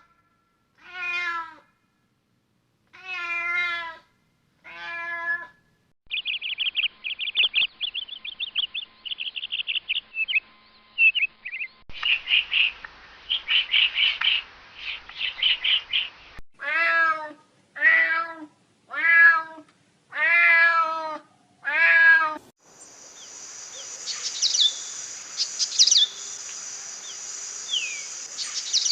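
A domestic cat meowing three times. Then small birds chirping rapidly in quick runs, and the cat meowing five more times. Near the end, birds chirp over a steady high-pitched hiss.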